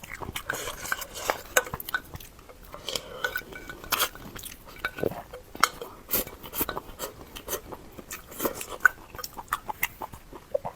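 Close-miked eating: chewing and biting food, with frequent sharp, irregular clicks of utensils against a dish.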